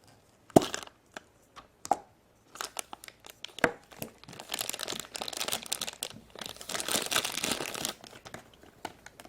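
Hands opening a toy surprise egg: a few sharp clicks and snaps in the first four seconds, then several seconds of wrapping crinkling and tearing.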